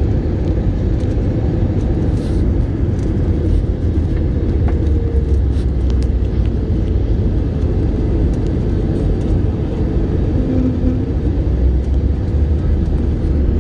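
Steady low rumble of a jet airliner's engines and airflow on final approach, heard inside the cabin from a window seat over the wing.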